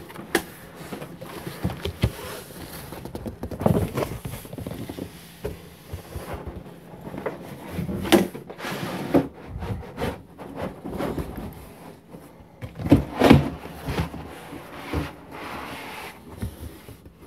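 Cardboard shipping box and foam packing being handled as a desktop tower is worked out of the box upside down: irregular cardboard scraping and rustling with dull knocks, the loudest cluster of knocks about thirteen seconds in.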